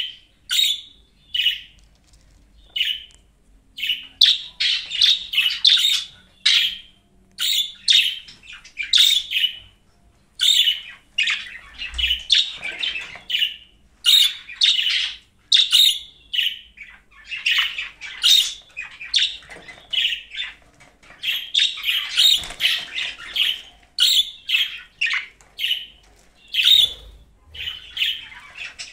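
Budgerigar chirping and warbling: short high chirps about once a second, with several runs of rapid chatter lasting a second or two.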